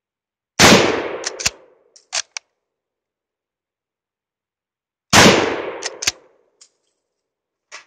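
Two shots from a .303 Ishapore Lee-Enfield No. 1 Mk III bolt-action rifle, about four and a half seconds apart, each with a tail of about a second. Each shot is followed by a few short metallic clicks of the bolt being worked.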